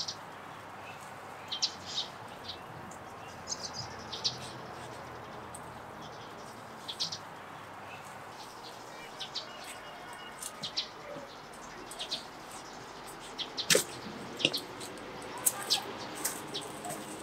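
Small birds chirping in short, high calls scattered throughout, more often and louder toward the end, over a steady background hiss.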